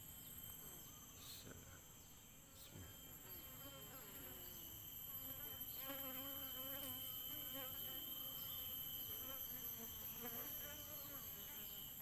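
A colony of Asian honey bees (Apis cerana) buzzing faintly in a tree hollow while a hand rests on the cluster; the buzz wavers in pitch and grows a little louder after a few seconds.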